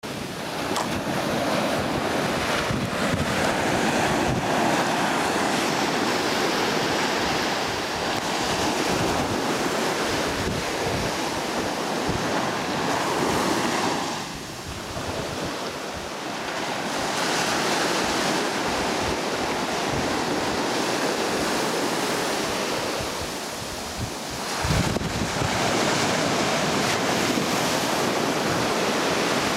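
Ocean surf breaking steadily along a beach, swelling and easing as the waves come in, with wind buffeting the microphone in gusts.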